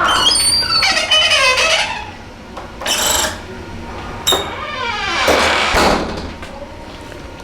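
Heavy door on a Sargent door closer creaking loudly as it swings, with squeals that glide up and down in pitch over the first two seconds and again from about four seconds in. A sharp knock comes about three seconds in.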